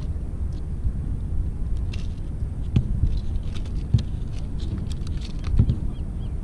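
Steady low rumble of wind on the microphone, with three dull thumps about three, four and five and a half seconds in as a hooked fish's tail knocks against the wooden dock boards.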